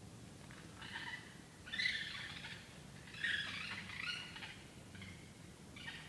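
A series of short, high-pitched calls from unidentified animals. They come in bursts of about half a second each, loudest about two and three seconds in.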